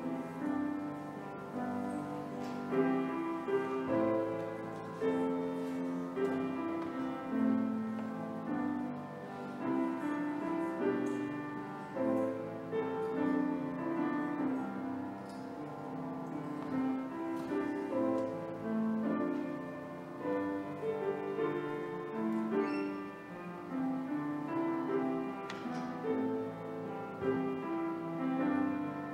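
Piano music: a slow melody over held chords, playing steadily throughout.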